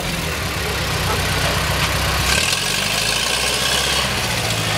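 Vintage car engines idling at close range, a steady low rumble that shifts to a new pitch about halfway through.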